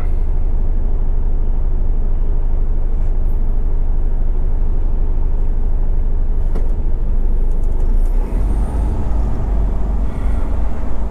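Semi-truck's diesel engine running with a steady low drone, with a few faint ticks; the low drone grows stronger about eight seconds in.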